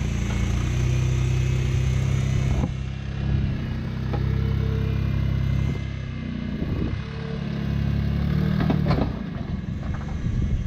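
Jeep Wrangler's engine running at low revs as it crawls over a rock ledge, the revs picking up about two thirds of the way in and easing again. A couple of sharp knocks, tyres or underbody striking rock.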